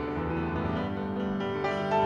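Steinway grand piano playing blues, with sustained chords and single-note runs.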